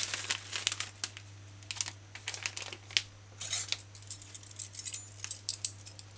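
A set of metal measuring spoons on a ring clinking and rattling in scattered light clicks, with brief rustling, as baking powder is scooped from its container, over a steady low hum.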